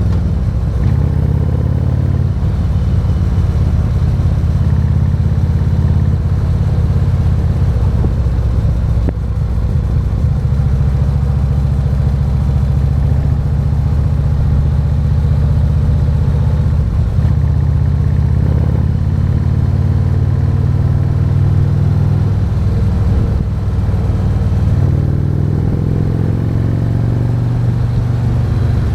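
Harley-Davidson Road King's 117-cubic-inch V-twin engine running under way at a steady cruise, with road noise. The engine pitch climbs near the end as the bike accelerates.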